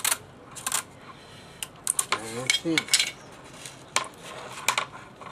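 Clear tape and a plastic coat hanger being handled as the tape is wrapped around a Styrofoam windmill blade: irregular clicks, taps and crackles.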